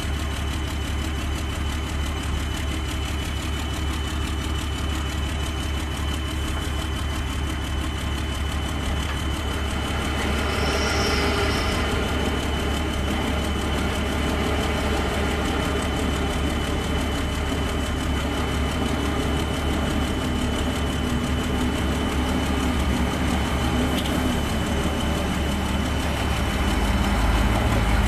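Heavy diesel engine running steadily, getting louder as a Shacman three-axle dump truck loaded with sand drives up close near the end.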